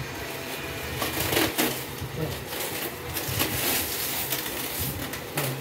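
Plastic stretch film being pulled off its roll and wound around a cardboard-covered panel, crackling and rustling repeatedly as it stretches and rubs against the cardboard.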